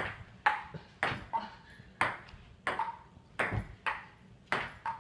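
Table tennis rally: a plastic ping-pong ball clicking off the paddles and the table, nearly two hits a second, each with a short ringing ping.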